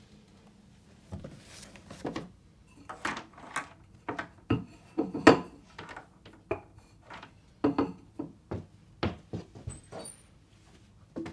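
Household objects being handled and set down while tidying: an irregular run of light knocks, taps and clatters, the sharpest about five seconds in.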